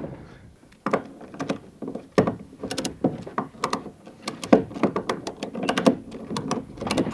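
Ratchet tie-down strap being tightened over a kayak in a pickup bed: sharp clicks in short clusters, with a few knocks of the gear.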